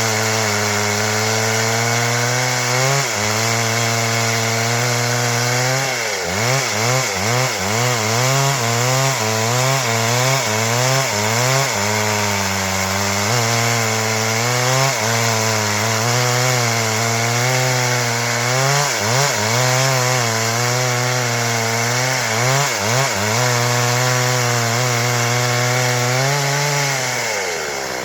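Stihl MS 382 two-stroke chainsaw running at high revs while cutting through wood, its engine speed wavering and dipping repeatedly under load. Near the end the revs drop away, then pick up again.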